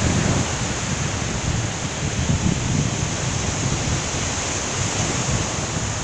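Small waves breaking and washing up a sandy beach, a steady surf hiss, with wind rumbling unevenly on the microphone.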